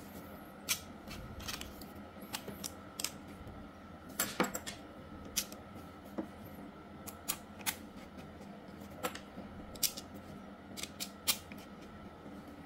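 Scattered sharp clicks and taps of a hair clipper and a metal replacement blade being handled and fitted together, the blade knocking against the clipper's plastic body and blade guide. A faint steady hum sits underneath.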